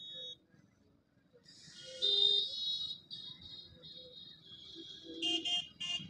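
Vehicle horns honking in heavy street traffic: high-pitched beeps, the loudest about two seconds in and two short ones near the end, over a faint engine rumble.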